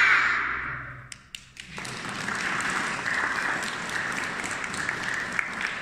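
Group of young children's voices holding a last sung note that fades away within the first second, then applause with many hands clapping from about two seconds in.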